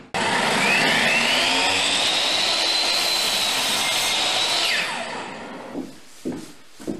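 Electric miter saw running and cutting an aspen board: the motor whine rises as it comes up to speed, holds steady, then falls away as the saw is switched off and winds down about five seconds in. A few short knocks follow.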